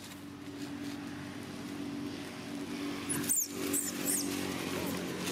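Three short, high-pitched squeals from a young macaque, each sliding downward, about three to four seconds in, while monkeys grapple. A steady motor hum runs underneath throughout.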